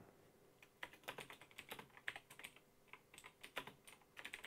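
Faint computer keyboard typing: irregular runs of quick key clicks with short pauses between them.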